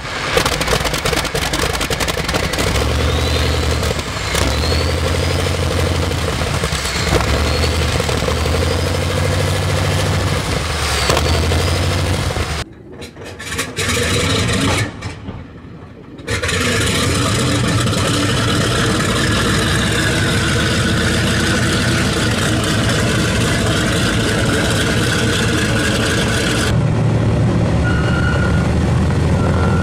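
Wright R-3350 Duplex-Cyclone 18-cylinder radial engine starting, firing unevenly as it catches. After a short break, the R-3350 radial engines of a B-29 Superfortress run steadily.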